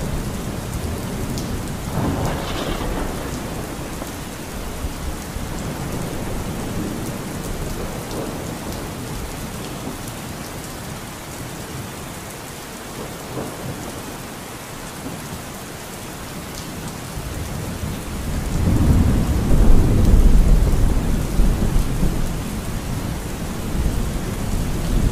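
Steady rain with thunder. A long, low rumble of thunder swells about three-quarters of the way through, after a smaller rumble near the start.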